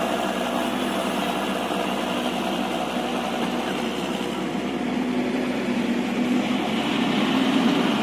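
Caterpillar hydraulic excavator's diesel engine running steadily, a little louder over the last few seconds.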